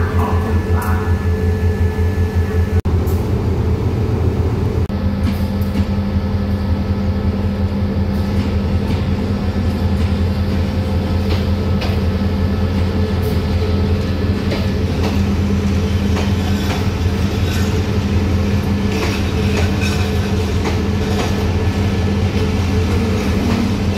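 GEA-class diesel-electric locomotive No. 4532 running with a steady low engine drone as its train moves along the platform. Wheels clatter over the rail joints with scattered clicks, more of them in the second half.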